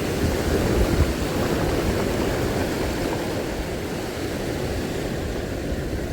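Sea surf washing steadily with wind buffeting the microphone in low, gusty rumbles.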